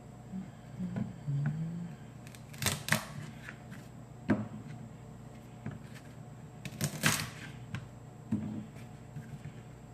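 Kitchen items being handled and moved about: scattered knocks, clicks and rustles, the sharpest a few knocks about three seconds and seven seconds in.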